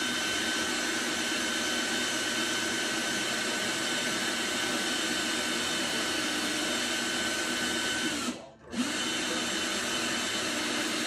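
Power drill running at steady speed in one long run of about eight seconds with a steady whine, stopping briefly near the end and starting again.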